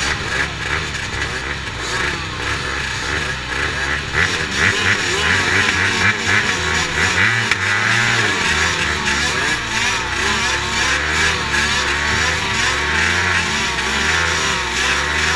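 Several motocross bikes' engines running together on a start line, each rider blipping the throttle so the overlapping revs keep rising and falling. The revving grows a little louder about four seconds in, as the bikes wait for the start.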